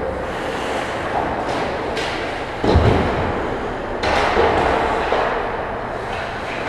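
Ice hockey play close to the net: sharp clacks of sticks or puck, and a loud thud nearly three seconds in, over a steady noise of skating.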